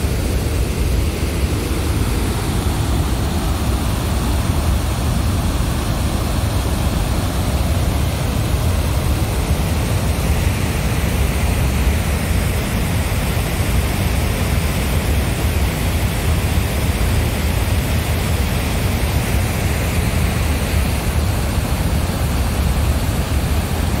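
Floodwater pouring over a dam's overflow spillway: a loud, steady rush of falling water. The reservoir is above its maximum capacity and spilling.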